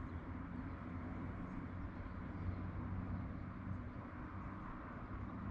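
Steady low wind rumble and hiss on the microphone.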